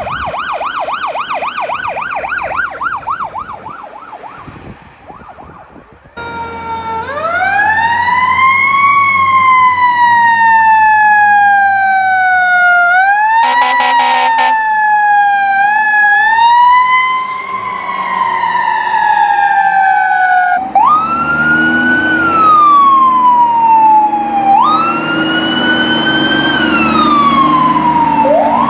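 Fire truck sirens in turn. First comes a fast yelp siren that fades away. Then a wailing siren sweeps up and slowly winds down, with an air horn blast of about a second in the middle. Near the end another wailing siren rises and falls twice over the truck's engine.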